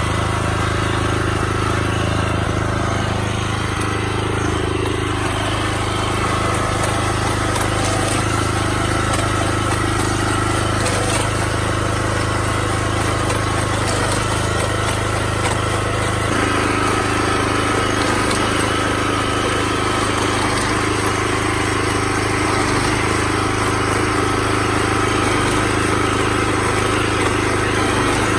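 Small petrol engine of an ISEKI walk-behind rice reaper-binder running steadily under load while it cuts and bundles standing rice. The engine note shifts slightly about halfway through.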